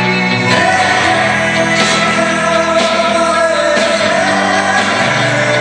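Live pop-rock music from a band with singing; a long wavering note is held for about four seconds.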